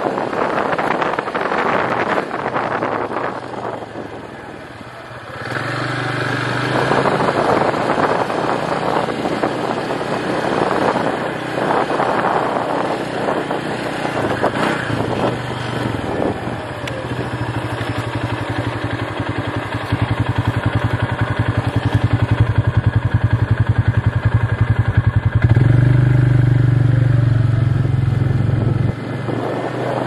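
Engine of a small off-road vehicle running as it travels along a rough gravel trail, over the rumble of tyres and road noise. It eases off briefly about four seconds in, then picks up. In the second half a fast, even engine pulse comes through, strongest near the end.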